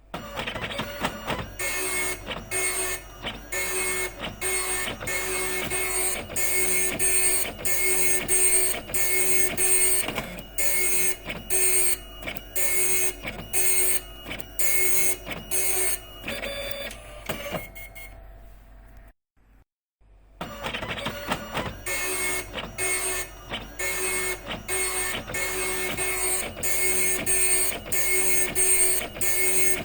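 Epson dot matrix printer printing, its print head rasping through line after line in short passes, about two a second, with a thin high whine in each pass. A little past the middle the printing stops for about two seconds, then starts again.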